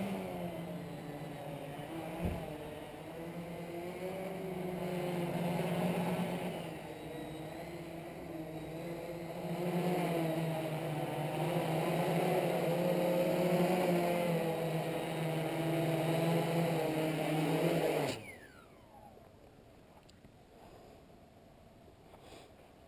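Homebuilt multirotor race copter's electric motors and propellers buzzing steadily as it hovers on its maiden flight, the pitch wavering a little with throttle. About 18 seconds in the motors cut and spin down with a falling whine as it sits on the grass.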